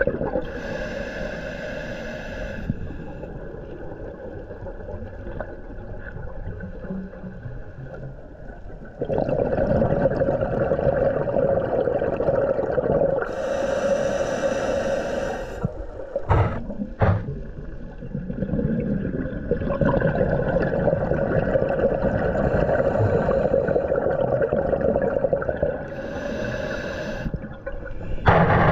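Underwater sound of a scuba diver breathing through a regulator: a bubbling, gurgling exhaust with a hiss roughly every twelve seconds, three times in all. Two short knocks come about midway.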